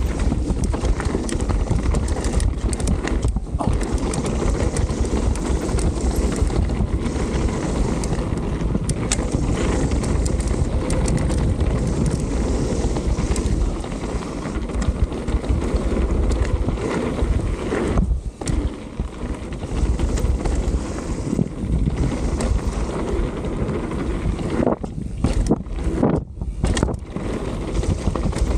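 Wind buffeting the action-camera microphone while a Canyon mountain bike's tyres rumble over a dirt trail, with frequent knocks and rattles as it runs over bumps. The noise drops away briefly a few times, about two-thirds of the way through and near the end.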